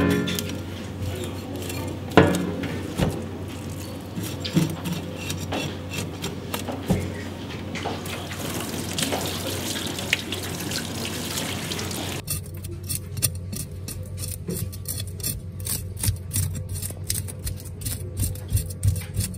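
Water running in a stainless steel sink with a couple of sharp knocks. Then, from about twelve seconds in, a knife scraping the scales off a Japanese sea bream (tai) in quick repeated strokes.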